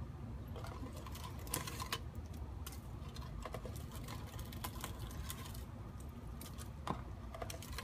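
Dry bird's-nest material crackling and rustling as it is pulled out, a busy run of irregular small clicks and scratches.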